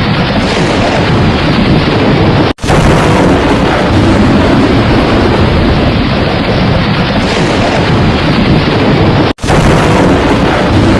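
Loud steady white noise, a dense even hiss with a strong low end, broken twice by a split-second silent gap.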